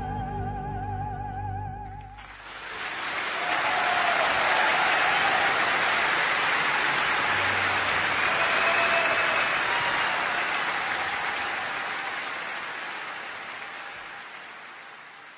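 A sung note with a wide vibrato over music ends about two seconds in. It is followed by a live audience applauding, which fades out slowly toward the end.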